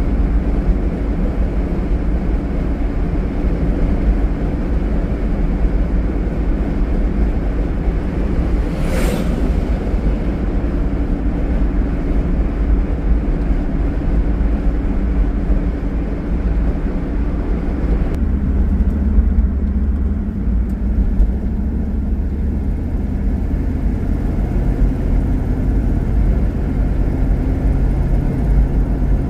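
A 1971 Dodge Challenger convertible cruising, heard from inside the car: steady engine and road rumble. A brief whoosh comes about nine seconds in, and the engine note shifts a little past halfway.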